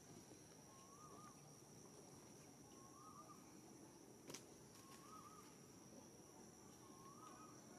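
Faint outdoor wildlife ambience: a steady high insect drone, with a short warbling call repeating about every two seconds and a single sharp click about four seconds in.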